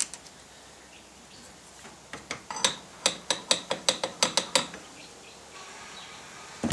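A small hammer tapping steel brackets held in a bar clamp: a quick run of about fifteen light metallic taps, around six a second, starting about two seconds in, setting the pieces in position for welding.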